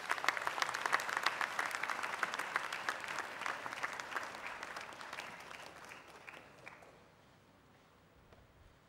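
Audience applauding, at its fullest in the first few seconds, then thinning out and dying away about seven seconds in.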